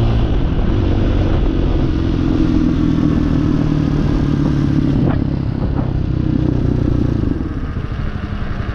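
Hawk 250 motorcycle's single-cylinder engine running steadily under way. About seven seconds in it drops to a quieter, more uneven note.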